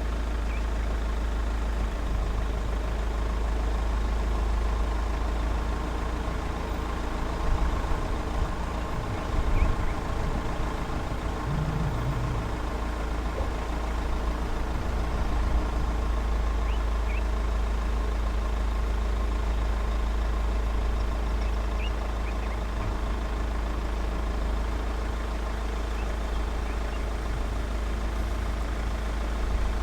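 Vehicle engine idling steadily, a constant low rumble with a few faint short high chirps over it.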